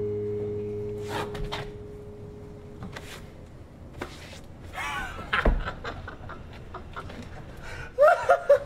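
A held music chord dying away, then scattered scuffling knocks with a heavy thump about five and a half seconds in, and a man's loud, short shouted cries near the end.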